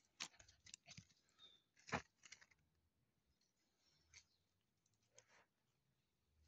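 Near silence broken by a few faint clicks and rustles, the loudest about two seconds in.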